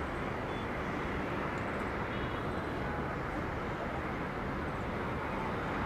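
Steady rushing hum of distant road traffic on the multi-lane road far below.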